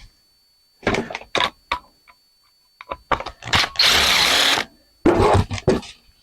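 Metal light-fixture parts being handled: several sharp knocks and clicks, with a dense rattle of just under a second near the middle.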